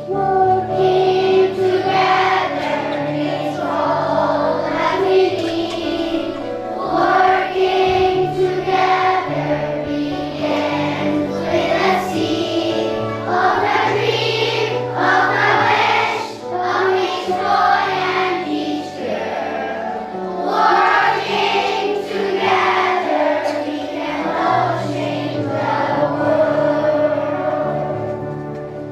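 A choir of children singing a song in unison over instrumental backing music with steady held bass notes.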